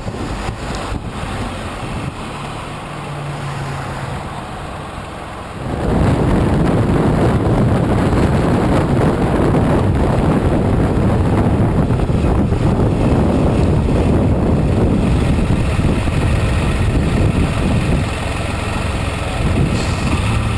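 Heavy wind buffeting on an action camera's microphone, jumping much louder about six seconds in and staying loud.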